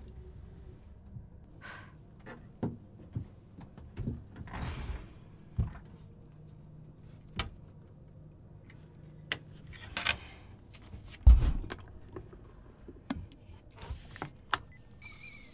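Scattered light knocks, clicks and rustles of objects being handled on a table in a small room, with a heavier thump about eleven seconds in.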